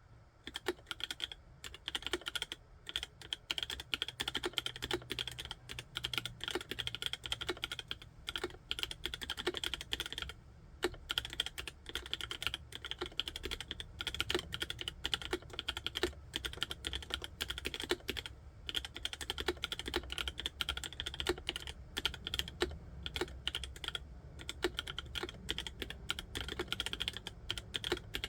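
Continuous fast typing on a mechanical keyboard with Kailh Cream switches, a rapid patter of keystrokes with two brief pauses about eight and ten seconds in.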